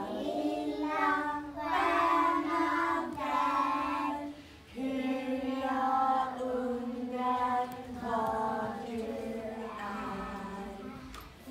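A small group of women's and young children's voices singing a simple children's song together, in phrases of long held notes, with a short breath break about four and a half seconds in.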